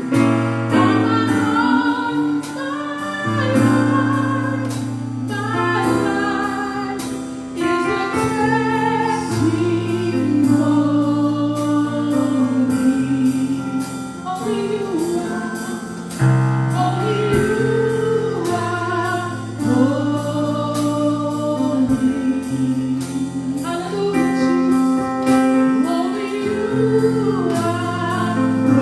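Live gospel worship music: a group of singers over sustained band chords with a bass line and a steady drum beat.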